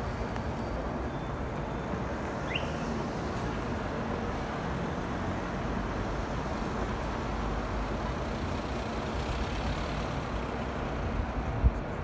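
Steady city traffic noise, an even low rumble of road vehicles with no single one standing out. A sharp low thump comes just before the end.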